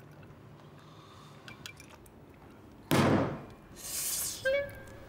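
Quiet room tone with a few faint clicks, then a sudden loud thump about three seconds in that fades quickly, a brief hiss, and a woodwind music cue beginning near the end.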